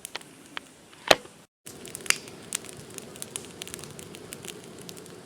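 Brush-pile fire of oak tops and vine-tangled shrubs crackling, with scattered sharp pops and one loud snap about a second in.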